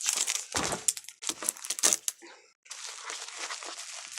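Plastic packaging crinkling and rustling in irregular bursts as it is handled. The bursts stop briefly about two seconds in, then a softer, steadier rustle follows.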